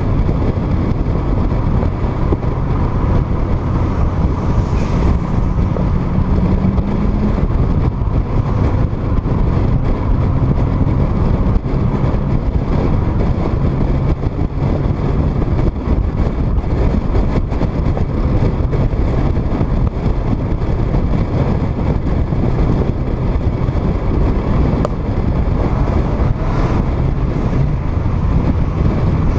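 Car driving at a steady cruise: the engine running with a low drone, with wind and road noise rushing over an outside-mounted microphone. The engine note rises briefly about six seconds in.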